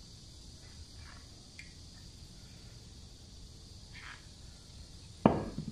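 A few soft clicks and light knocks of hand work over a faint, steady high-pitched hiss, then one sharp, loud knock a little over five seconds in that rings briefly.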